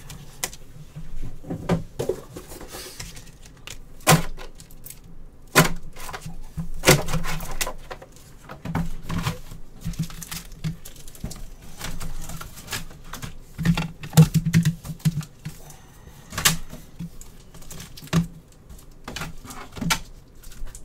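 Irregular clicks and knocks of small objects being handled and set down on a desk.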